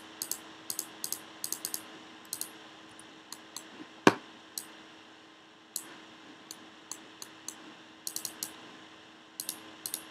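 Scattered computer keyboard and mouse clicks, some in quick runs of two or three, with one much louder knock about four seconds in, over a faint steady hum.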